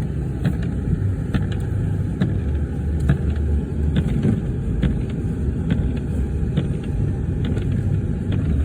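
Car driving on a slippery, snow-covered road: a steady low rumble of engine and tyres, with scattered light clicks throughout.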